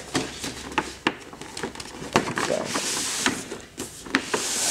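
Cardboard slipcover being slid down over a collector's window box: cardboard rubbing on cardboard, with a run of light taps and knocks as the box is handled.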